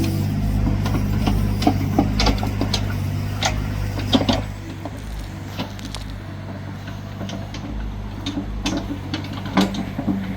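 Engine of a piece of site machinery running steadily, with scattered clanks and rattles, during backfilling of a trench.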